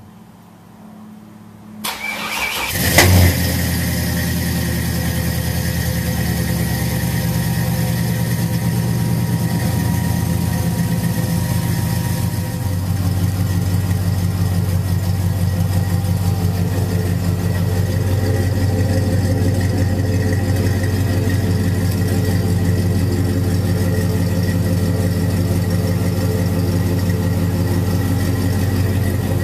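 GM LS V8 engine breathing through a newly built 2.5-inch dual exhaust. It cranks and fires about two seconds in, flares briefly as it catches, then settles into a steady idle. The idle note changes about twelve seconds in.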